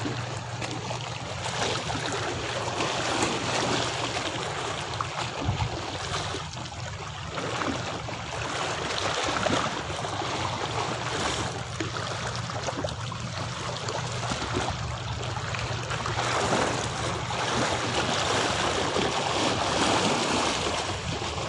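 Small sea waves lapping and washing against the shore, a continuous rushing noise that swells and eases gently, with a faint steady low hum underneath.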